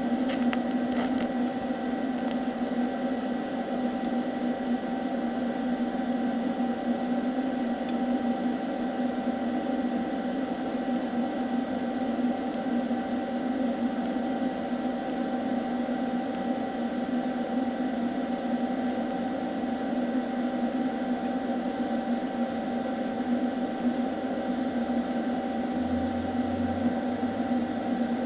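TIG welding arc on thin mild steel sheet: a steady, unbroken electrical hum with a hiss underneath.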